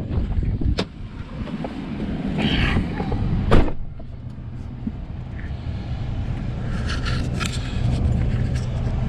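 A vehicle engine running steadily, with wind buffeting the microphone and a few sharp knocks in the first four seconds.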